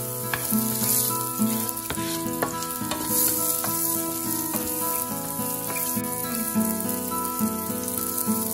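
Sliced red onion sizzling in hot oil in a nonstick frying pan as it is stirred, a steady frying hiss. Background music with a steady beat plays under it.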